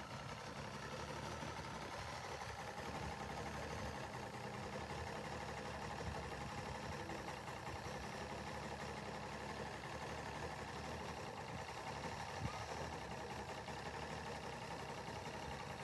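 Mercury 250 EFI outboard idling steadily.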